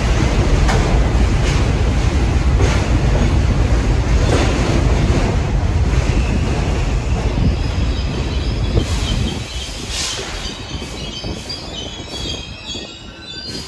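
New York City subway train running on the track, a loud rumble with wheels clacking over rail joints. About nine seconds in the rumble drops away, and high metallic squeals ring out near the end.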